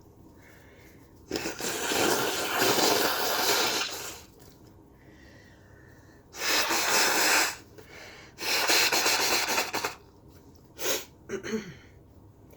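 A person with a stuffy head cold sneezing: three long, loud noisy bursts, then a couple of short sharp breaths near the end.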